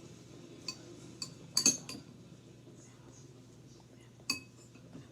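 Cutlery clinking against a dish in a few sharp, separate clinks. The loudest come as a quick pair about a second and a half in, and one a little past four seconds rings briefly.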